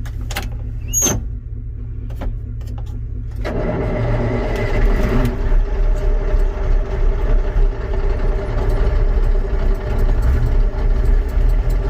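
Big Ford truck's engine heard from inside the cab: a low steady rumble with a few clicks, then about three and a half seconds in it picks up and runs louder and steadier.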